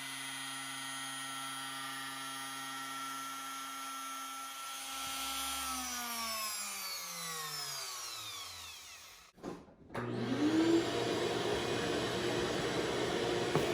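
A CNC router's spindle motor running steadily, then winding down to a stop over a few seconds. After a short break a motor spins up quickly to a steady high whine with a rough noise over it.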